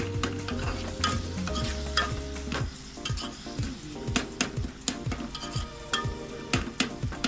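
A metal spoon stirring chicken masala in an aluminium pot on a gas stove: quick, repeated clinks and scrapes of the spoon against the pot over a steady frying sizzle.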